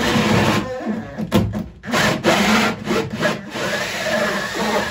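Makita cordless drill spinning a hole saw through a plasterboard ceiling, the saw rasping as it cuts a downlight hole, with a few brief breaks in the cutting.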